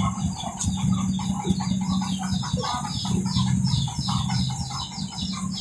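Chickens clucking and birds chirping in quick repeated calls, over a steady low hum from the running mobile rice mill.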